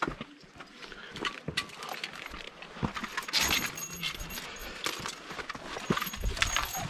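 Irregular clinks and knocks of a steel safety chain against rock, mixed with boot steps and scrapes on granite as a climber scrambles up a chained section.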